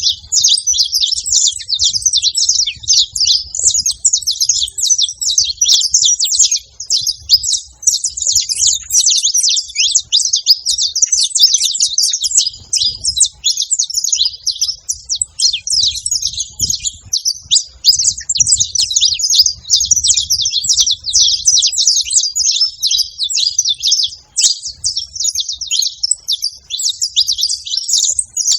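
A pair of saffron finches, male and female, chirping and singing without pause: a dense stream of rapid, high chirps.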